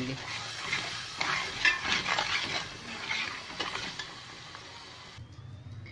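Metal spoon stirring and scraping a thick masala paste around a metal pot as it fries in ghee, with a soft sizzle under the irregular scrapes. The stirring stops suddenly about five seconds in.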